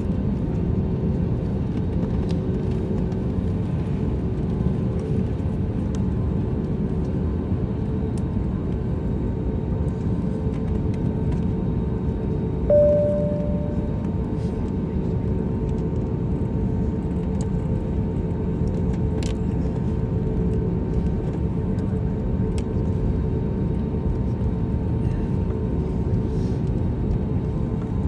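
Steady low rumble inside the cabin of an Airbus A320neo taxiing, its engines running at taxi power, with a few steady hum tones under it. About halfway through a single short tone sounds once and fades.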